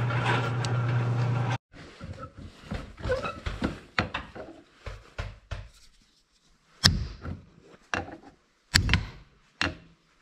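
A steady low hum cuts off abruptly about a second and a half in. Then, after some handling clatter, a hammer strikes the Ford 8N starter's drive shaft clamped in a vise several times, about a second apart, knocking at a drive part rusted to the shaft.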